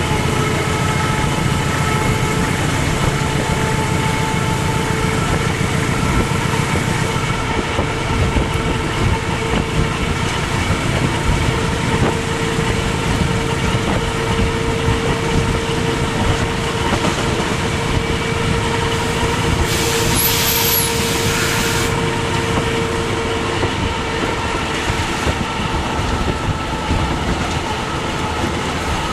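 Diesel-electric locomotive running under full traction: a steady drone and whine from the engine and traction motors over the rumble of wheels on rail. A short high hiss about twenty seconds in.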